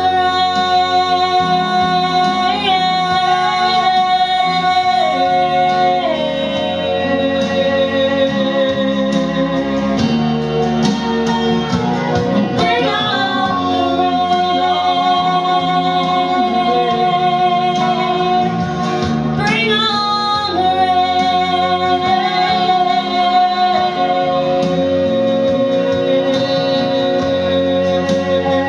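Live country song: a woman singing long held notes over a backing band, with the melody stepping down near the end.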